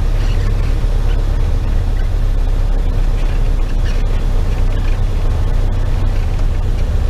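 Piper PA-28's piston engine running throttled back on the landing rollout, heard inside the cabin as a loud, steady low drone.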